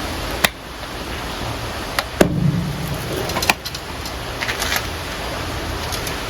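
Steady rushing noise of strong wind and surf. Several sharp knocks and clicks come through it, the loudest a thump about two seconds in.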